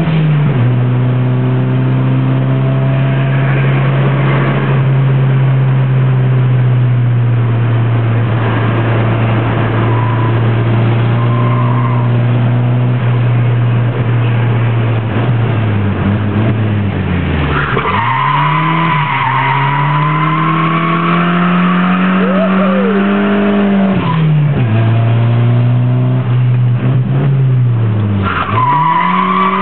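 Nissan S13 200SX engine heard from inside the cabin on track: the engine holds steady high revs, then the revs drop and climb back several times as the car is driven sideways. The tyres squeal for several seconds from a little past the middle, and again near the end.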